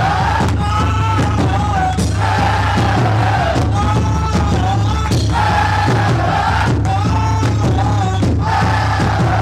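Live rock band playing loudly, with a lead singer's voice over the band in phrases about a second or two long.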